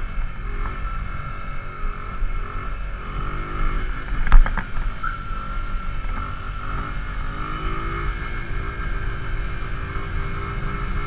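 A Bajaj Boxer CT 100 motorcycle's single-cylinder four-stroke engine running as the bike rides along, its note climbing over the last few seconds as it speeds up. A sharp knock about four seconds in.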